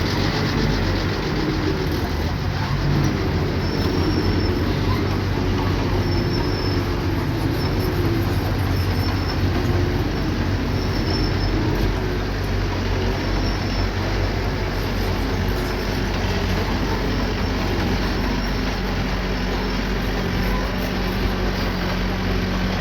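Small crawler bulldozer's diesel engine running steadily under load, with its steel tracks giving short high squeaks every second or two through the first half.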